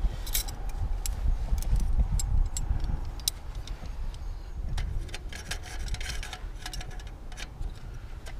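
Scattered light metal clicks and jangling as an aluminium folding pot grip is handled and clipped onto the rim of an aluminium saucepan, over a low, uneven rumble.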